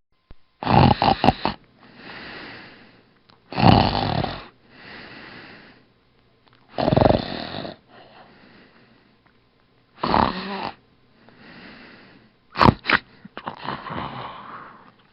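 Snoring: a loud snore about every three seconds, each followed by a quieter breath out.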